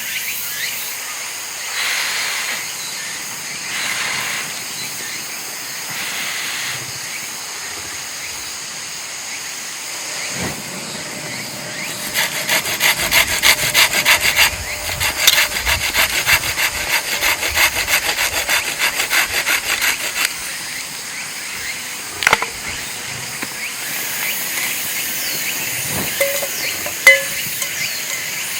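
Hand-sawing wood: a quick, even run of saw strokes that lasts about eight seconds in the middle, with a few softer scrapes before it. Insects chirp steadily throughout.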